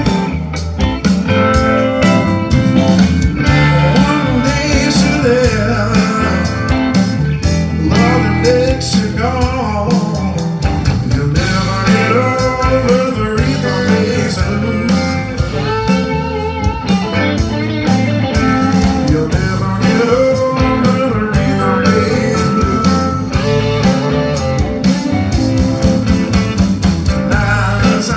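Live blues-rock band playing loud and steady: electric guitars, bass, drums and keyboard.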